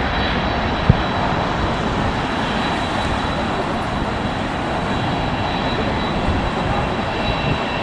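Twin-engine jet airliner climbing out after takeoff: steady jet engine noise. A single brief thump about a second in.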